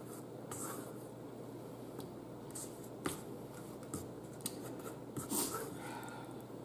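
Fork scraping and clicking against a plate of stewed chicken and rice as the meat is cut, quietly, with a few sharp clicks about midway.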